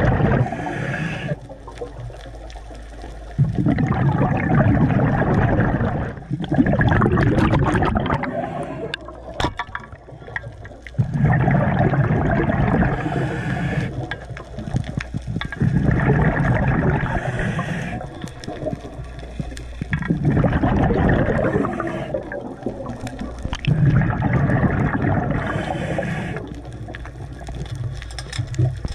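Scuba diver breathing underwater through a regulator: surges of gurgling exhaled bubbles come back every four to five seconds, with quieter gaps between.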